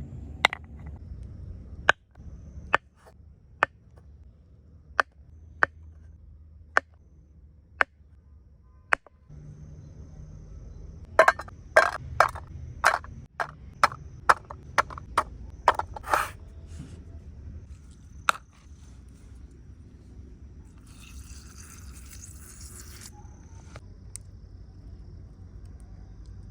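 A series of sharp knocks: single strikes about a second apart, then a quick run of about a dozen louder ones near the middle, and a short rustling hiss later on.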